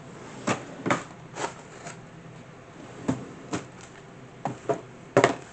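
Irregular sharp clicks and knocks, about ten in all, from a plastic desk calculator being fetched and set out on the desk.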